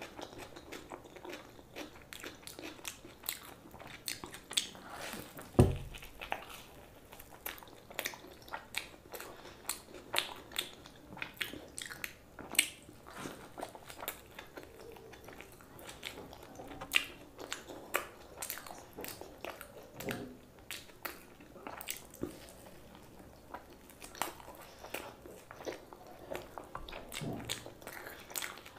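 Close-miked chewing and biting of food: irregular wet mouth clicks, smacks and small crunches. A single low thump about six seconds in.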